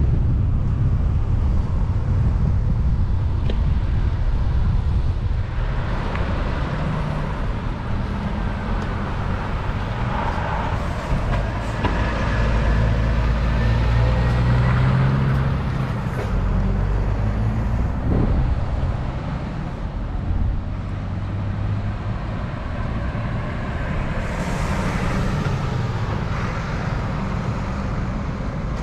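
Road traffic, cars and trucks, passing close by. The noise swells twice, a long pass in the middle and a shorter one near the end, over a steady low wind rumble on the microphone.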